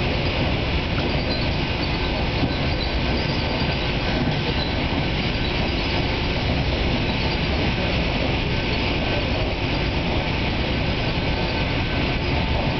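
Steady running noise inside a New Jersey Transit Arrow III electric multiple-unit railcar moving at speed.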